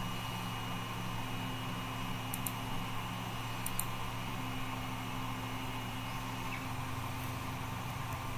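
Steady low electrical or fan hum with a faint high whine that stops about two-thirds of the way through, and a few faint clicks.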